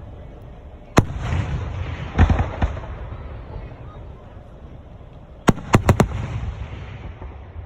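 Aerial fireworks bursting. A single sharp bang about a second in is followed by crackling and a few more pops, then a quick volley of four bangs near the end, each trailed by a low rumble.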